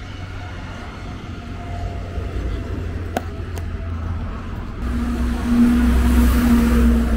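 A large vehicle passing close by, coming in about five seconds in with a steady hum and loudest about a second later. Before it there is a low outdoor rumble and two light clicks.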